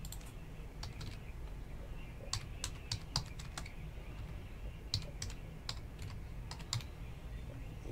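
Faint typing on a computer keyboard: several short runs of key clicks with pauses between them, over a low room hum.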